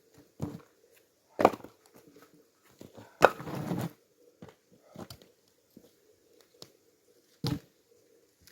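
An axe striking and splitting firewood logs: a handful of sharp wooden knocks spaced a second or two apart. The loudest comes about three seconds in, followed by a brief clatter of split pieces.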